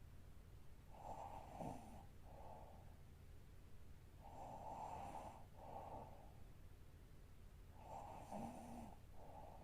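A sleeping woman snoring softly: three slow, noisy breaths about three and a half seconds apart, each a longer draw followed by a shorter one.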